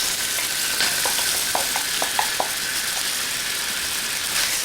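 Thinly sliced onion sizzling steadily in hot ginger-infused oil in an electric wok, with a few light clicks of stirring between one and two and a half seconds in.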